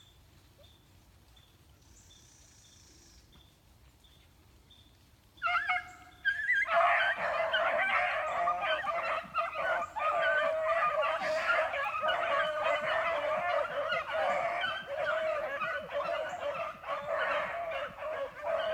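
Pack of beagles baying on a rabbit's trail. After a few seconds of quiet, one hound opens with a long bay, and about a second later the whole pack joins in with a steady chorus of overlapping bays.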